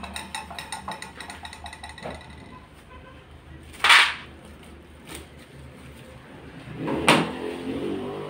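Kitchenware handled on a tiled counter: a run of light ticks and clinks, then two louder brief knocks about four and seven seconds in.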